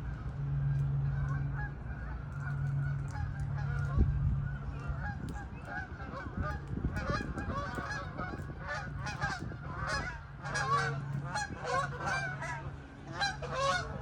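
A flock of geese honking, the calls sparse at first and coming thick and overlapping from about halfway on. Under them runs a low hum that comes and goes, and there is one sharp thump about four seconds in.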